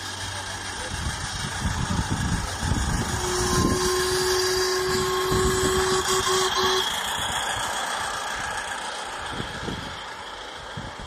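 Miniature ride-on railway locomotive and its wagons running past on the track, louder as it passes. It sounds one long steady warning note for about three and a half seconds midway.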